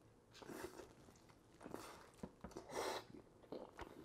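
A person faintly chewing a mouthful of grilled chicken dunked in tikka masala sauce: a few soft, irregular chewing and mouth sounds with small clicks.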